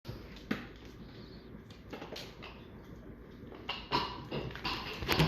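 A dog hiccupping: short, sudden hiccups at uneven intervals, a sharp one about half a second in, then several more that come quicker and louder near the end.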